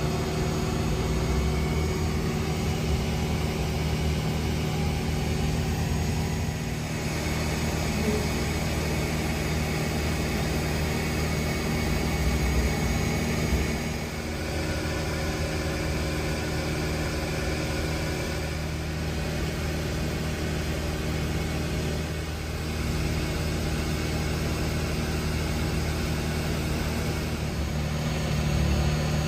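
A steady motor hum with a low droning pitch, changing slightly in level a few times.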